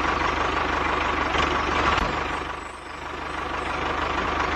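Engine running steadily with an even low beat, dipping briefly in loudness a little before three seconds in.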